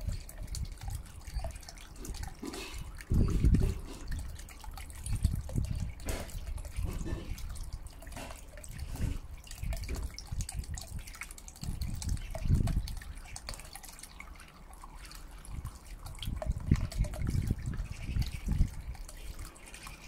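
Small submersible fountain pump throwing up a bubbling jet of water that splashes and trickles back into a shallow metal tray. Irregular low rumbles come and go over it.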